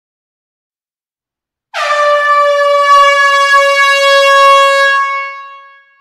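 Loud air horn sounding one long, steady single-note blast, starting a little under two seconds in and fading out near the end.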